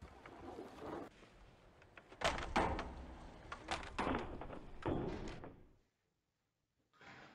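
Several flat-screen televisions toppling off their display stands and hitting the floor: a run of heavy thuds and clatters, the loudest about two and a quarter to two and a half seconds in, with further hits about four and five seconds in.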